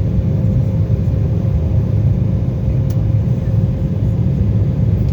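Airliner cabin noise during takeoff: a steady, loud jet-engine rumble with a constant hum tone above it, and a faint click about three seconds in.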